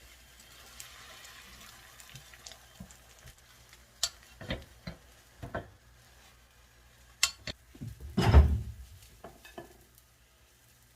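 Kitchen cooking sounds: a faint sizzle at first, then utensils and cookware knocking and clicking several times, with one louder clatter about eight seconds in.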